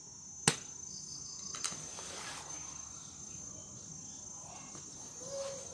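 A sharp snap about half a second in as the stretched rubber bands of a homemade tree-fork slingshot are let go, then a softer tap. Under it, insects keep up a steady high-pitched chirring.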